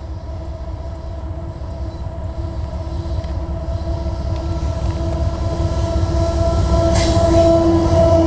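Freight train's diesel locomotives approaching and passing close by: a low engine rumble with a steady droning tone, growing steadily louder until the lead locomotive draws level near the end.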